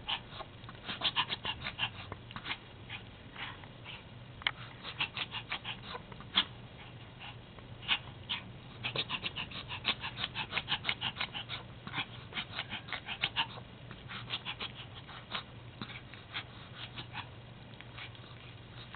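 Pomapoo puppy in a reverse-sneezing episode: quick, forceful wheezing gasps drawn in through the nose, several a second, in runs broken by short pauses.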